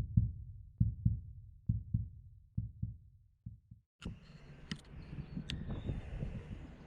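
Heartbeat sound effect: paired low thumps, lub-dub, about once a second, fading over the first four seconds. It then cuts to faint workshop noise with a few sharp clicks.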